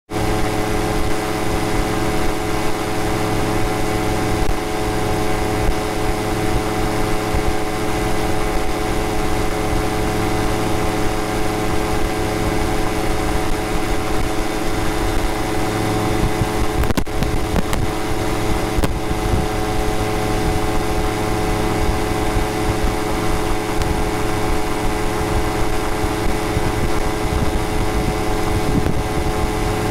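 Weight-shift microlight trike's pusher engine and propeller running steadily in cruising flight, with constant wind noise rushing past.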